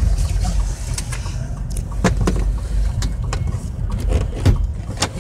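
Double-stack container freight train crossing a steel railroad bridge overhead: a steady low rumble with frequent sharp clanks and clicks from the wheels and bridge.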